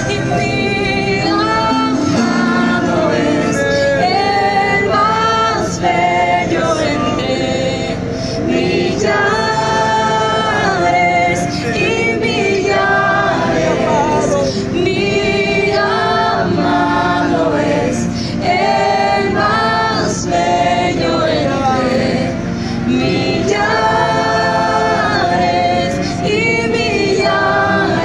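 Music: a song with a woman's singing voice and several voices singing together over a steady instrumental backing.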